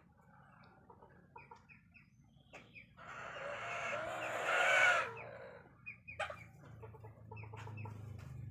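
Chickens clucking with many short calls, and one louder, longer call from about three to five seconds in.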